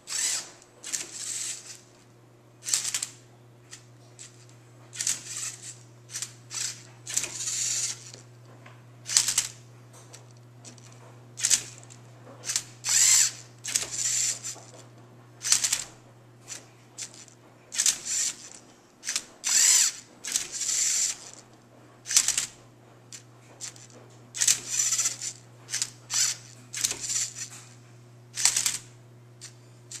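LEGO Mindstorms Rubik's cube-solving robot at work: short bursts of geared motor whirring with plastic clicks as it flips and turns the cube, one move after another at irregular intervals of about a second.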